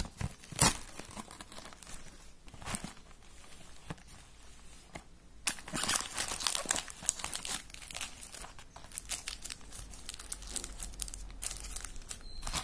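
Plastic and foil chocolate wrappers crinkling as a hand rummages through a cardboard box of wrapped bonbons, with short sharp rustles and snaps; the crinkling gets busier about halfway through.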